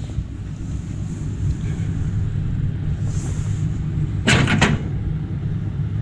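A low, steady rumble with a brief clatter of three or four sharp knocks about four seconds in.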